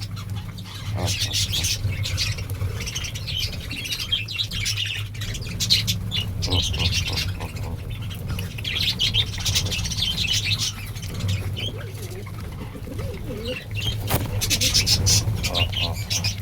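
Small birds chirping in rapid high bursts every few seconds, several at once, over a steady low hum.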